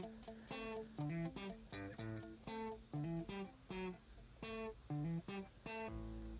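Background music: a guitar picking quick plucked notes in a steady rhythm.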